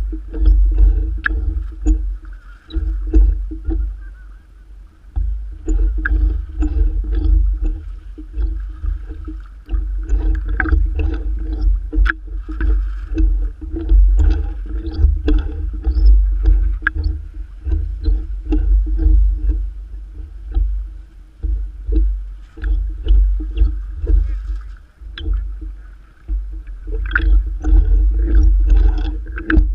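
Lake water sloshing and slapping against a camera riding at the waterline among radio-controlled model sailboats, with a heavy uneven low rumble and many small splashing clicks.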